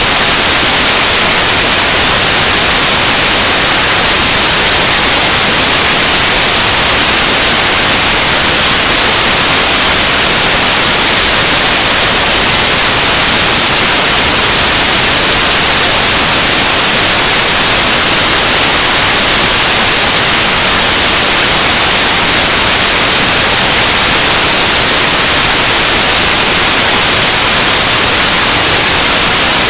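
Harsh noise music: a dense, loud wall of static-like hiss, steady and unchanging, strongest in the high end.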